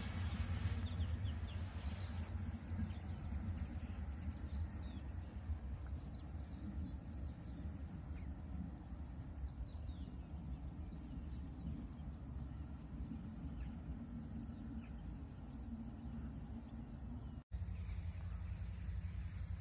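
Small birds chirping now and then, short faint calls over a steady low rumble. The sound drops out abruptly near the end and a similar low rumble comes back.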